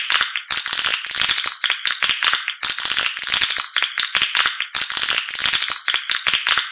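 Recorded swiftlet call of the edible-nest swiftlet (walet): rapid chittering trills made of quick clicks, coming in repeated bursts. It is a lure call played to draw swiftlets in to nest in a swiftlet house.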